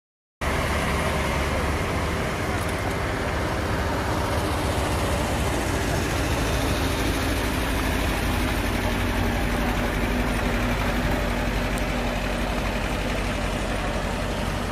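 Steady rumble of idling vehicle engines, cutting in abruptly about half a second in and running on evenly, with no impacts.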